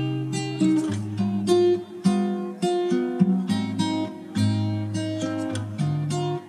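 Background music: acoustic guitar, plucked and strummed in a steady rhythm.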